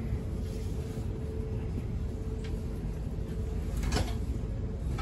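Inside a Queensland Rail electric suburban train pulling slowly into a station: a steady low rumble of the running train with a faint steady whine, and one short sharp click about four seconds in.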